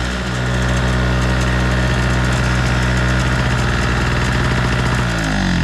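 Chicago Electric 2 hp two-stroke portable generator engine running steadily at its fixed governed speed, then shut off about five seconds in, its pitch dropping as it winds down.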